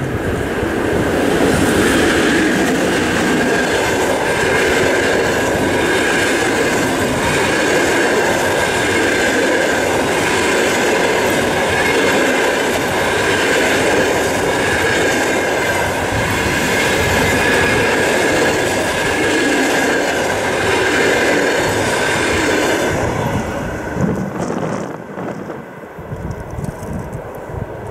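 EP2K electric locomotive and its passenger coaches rolling past at speed: loud steady noise of steel wheels on the rails, with a high steady tone running through it. The noise falls away sharply about 23 seconds in as the last coach goes by.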